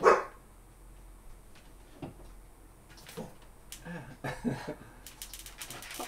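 Light handling sounds from a cordless drill and a metal shelf bracket being positioned under a cabinet: a sharp knock at the start, then scattered soft clicks and taps, and a quick run of small ticks near the end. No drill motor is heard running.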